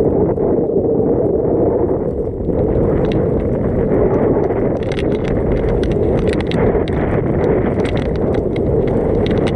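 Wind rushing over the microphone and snow hissing and scraping under a rider sliding downhill, with many sharp ticks from about three seconds in.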